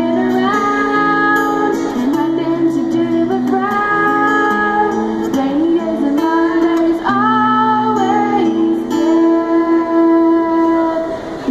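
A young female singer singing a song with long held notes, accompanied by a man playing an acoustic guitar.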